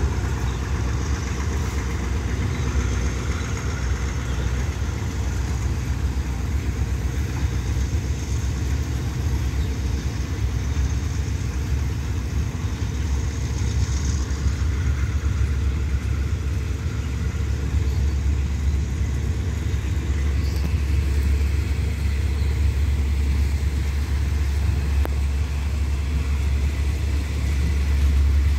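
Passenger coaches of a train rolling past on the track: a steady low rumble of wheels on rail that grows louder in the second half.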